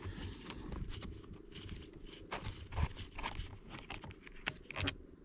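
Small scattered clicks and taps of hands working a plastic outboard fuel lift pump on cardboard as the last cover screw is turned out with the fingers.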